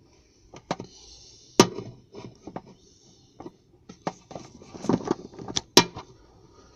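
A string of irregular knocks and taps, about a dozen, with two sharp louder knocks about a second and a half in and near the end.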